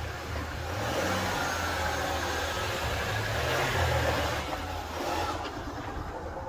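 A car driving along a road: a low engine hum under steady tyre and road noise, swelling a little in the middle.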